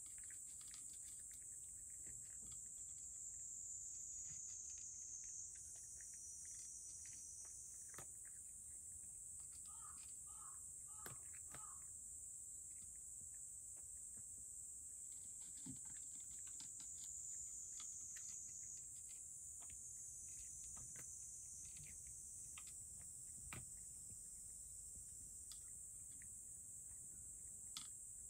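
Cat eating from its bowl: faint, scattered small clicks of chewing and licking over a steady high-pitched hiss.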